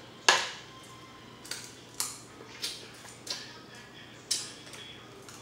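King crab leg shell cracking and snapping as it is pulled apart by hand. The loudest crack comes about a quarter second in, followed by about five smaller cracks over the next few seconds.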